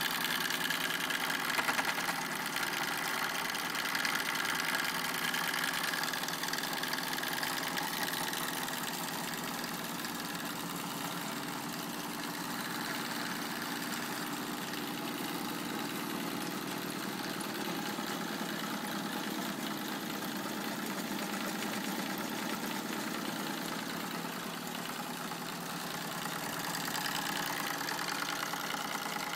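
Wilesco D9 model steam engine running steadily, its flywheel turning and driving the belt-driven M56 workshop models, heard as a steady hiss and whir.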